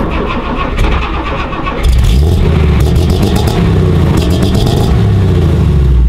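A 1955 Mercedes-Benz 300SL Gullwing's fuel-injected straight-six starting up: it turns over roughly, catches a little under two seconds in, then runs loud and steady.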